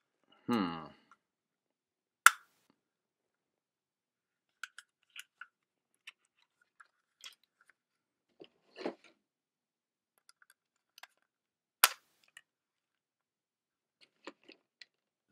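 Hard plastic parts of a Freestyle Libre sensor pack and applicator being handled and pried at. There are scattered small clicks and ticks, and two loud sharp snaps about 2 seconds and 12 seconds in.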